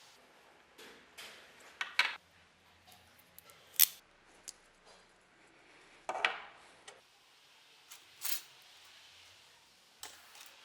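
Small tools and parts being handled on a workbench: a handful of separate sharp clicks, clacks and short scrapes, a second or two apart.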